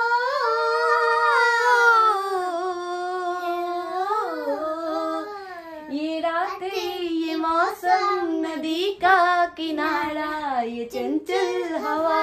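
A young child singing a song, with long held high notes that slide between pitches in the first few seconds, then quicker, choppier phrases with short breaks.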